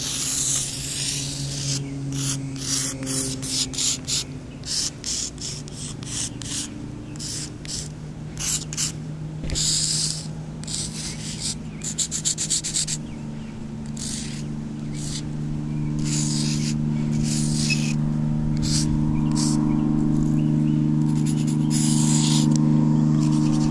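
Chalk scraping on pavement in many short strokes as a drawing is sketched. A steady low hum comes up underneath from about halfway and grows louder.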